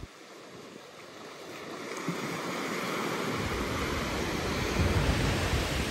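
Small waves breaking and washing up a sandy beach, the surf growing louder over the first few seconds.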